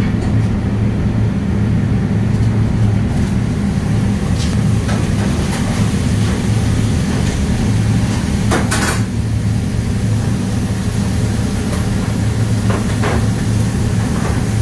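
Steady low machine hum of a commercial kitchen, with a few scattered clinks and clatters of dishes and utensils, the clearest a little past halfway.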